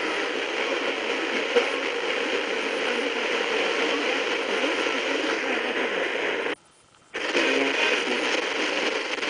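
Sony XDR-F1HD FM tuner's audio on a weak, noisy station at 91.0 MHz: a steady hiss and crackle with no clear programme. About six and a half seconds in, the audio mutes for half a second as the tuner steps to the next preset, and another station comes in.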